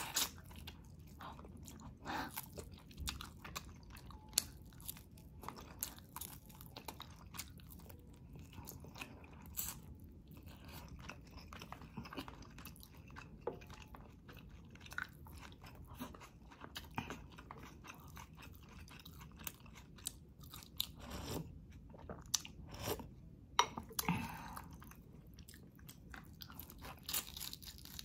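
A person chewing and biting mouthfuls of fried boneless milkfish (daing na bangus) eaten by hand, close to the microphone, with irregular sharp clicks and smacks between bites.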